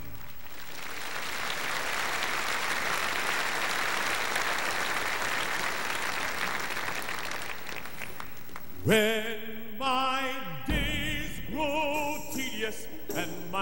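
Audience applauding for about eight seconds; then, about nine seconds in, a man starts singing solo with vibrato.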